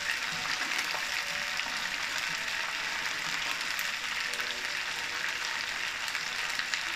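Finely chopped cauliflower and green peas frying in hot oil in a pan, a steady sizzle.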